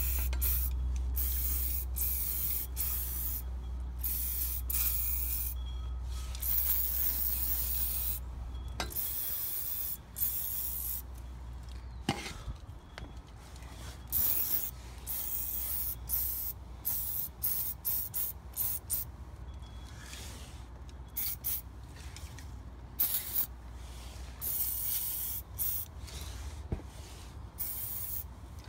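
Aerosol can of heavy-duty degreaser spraying in repeated bursts of hiss, some lasting a second or more and many brief, with a low rumble under the first several seconds.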